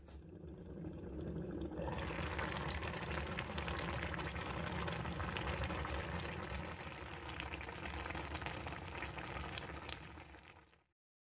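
Tofu and green onions in soy-chili sauce simmering in a pan, a dense crackle of bubbling and popping. It is muffled at first, grows louder and brighter about two seconds in, and stops just before the end.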